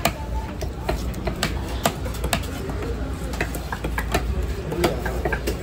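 Knife blows chopping a large fish on a cutting block: sharp knocks at irregular intervals of about half a second, over faint market chatter.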